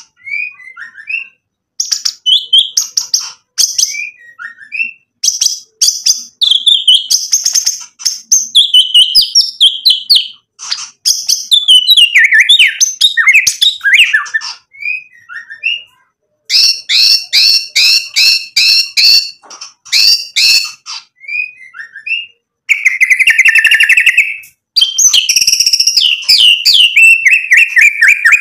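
A male white-rumped shama singing loudly in bursts: clear whistles and chattering phrases broken by short pauses, with a run of rapid sharp repeated notes midway and a long stretch of fast notes sliding down in pitch near the end. The song is packed with phrases borrowed from other birds.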